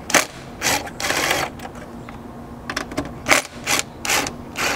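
Cordless power driver with a 10 mm socket spinning in several short bursts, the longest about half a second long roughly a second in, backing off the nuts that hold a seat-back monitor.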